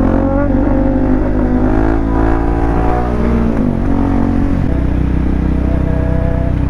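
Motorcycle engine running at steady revs, then the revs drop about three and a half seconds in and it settles at a lower, steady note.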